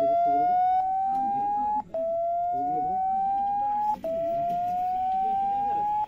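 A Xiaomi Redmi phone's MIUI 'Clear speaker' tone playing through its loudspeaker: a tone that rises in pitch over about two seconds, drops back and rises again, three times. The sweeping tone shakes water and dust out of the speaker grille.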